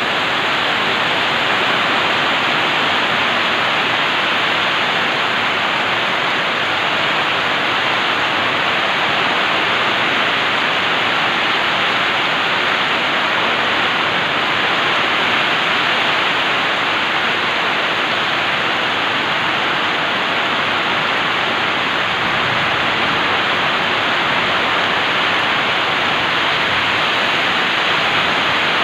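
Heavy rain pouring down steadily, an even hiss of a downpour on the yard and roofs that does not change.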